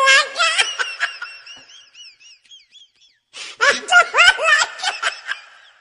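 High-pitched laughter in two bouts: the first trails off over the first couple of seconds, and a second burst starts about three and a half seconds in.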